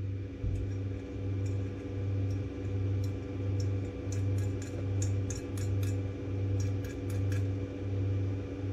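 A 3D printer's cooling fans running with a steady hum whose low part swells and fades about one and a half times a second. Over it come scattered light clicks and taps of a metal hand tool, a spatula scraping hardened filament off.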